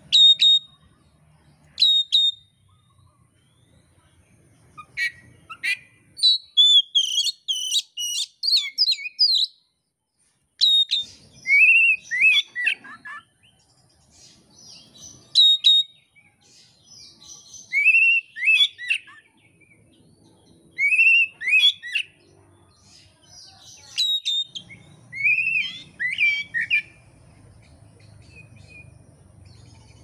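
Oriental magpie-robin singing in separate loud whistled phrases. There are sharp high notes, a fast run of varied notes, and repeated down-slurred whistles, with short pauses between phrases.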